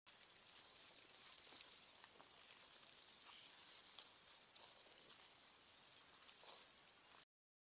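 Ice skate blades gliding and scraping on ice: a faint high hiss with scattered small clicks and crackles, cutting off suddenly about seven seconds in.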